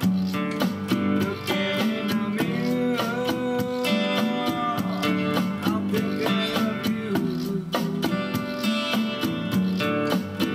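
Instrumental stretch of a song: strummed acoustic guitar with other guitar lines over a steady beat.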